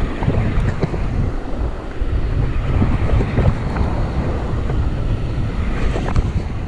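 Wind buffeting the camera microphone: a loud, steady, rough rumble with no clear tones.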